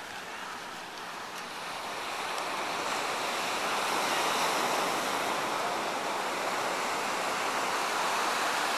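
Surf washing onto a sandy beach: a steady rushing that swells over the first few seconds and then holds.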